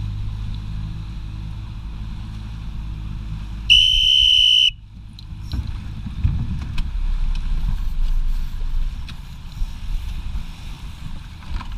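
A single high-pitched signal blast, held steady for about a second, sounded from a coach boat as a start signal. Before it the boat's outboard motor runs steadily; after it there is wind and water splashing against the hull.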